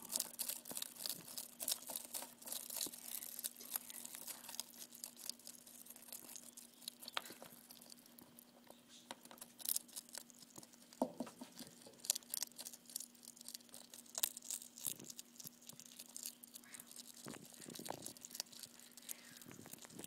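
Hedgehog chewing through a cicada's hard shell: irregular crunches and sharp clicks.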